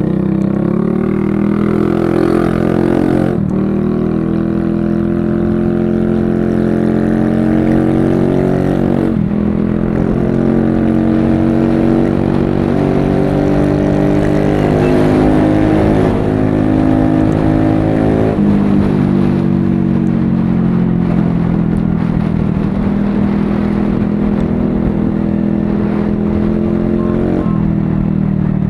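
TVS Ntorq 125 scooter's single-cylinder engine running through a freshly fitted SC Project aftermarket exhaust, revved over and over: the pitch climbs and then falls back sharply about four times.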